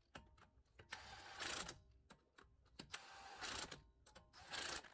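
Cordless impact wrench running in three short bursts, about a second and a half apart, as it runs lug nuts down in a star pattern, with small clicks between bursts.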